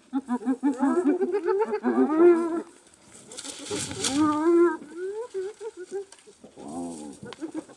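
Spotted hyenas giggling: fast runs of short, high, repeated notes that waver and rise, with a short rough burst of noise about three and a half seconds in.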